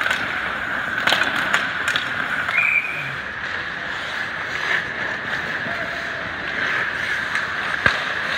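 Ice hockey rink during play: skates scraping the ice and sharp clacks of sticks on the puck, several around a second in and one near the end, over a steady arena hum.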